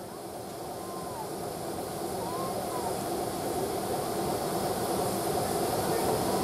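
Train noise: a steady rumble that grows louder, with a few brief high squeals over it.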